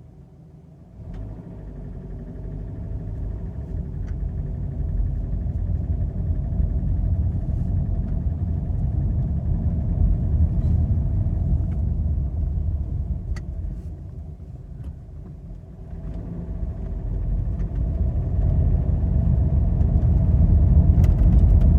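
Subaru FB25 2.5-litre flat-four engine running with a deep rumble and a knock that is present both cold and hot. It grows louder over the first half, dips about two-thirds of the way through, then swells again.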